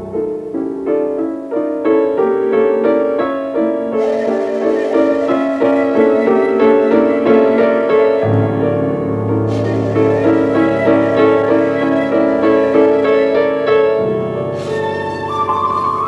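New-age/ambient piano music: the piano plays quick runs of notes, with a low bass note coming in about halfway through.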